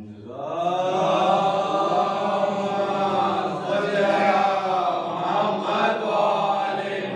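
A voice chanting a slow, melodic recitation, with long drawn-out notes that rise and fall.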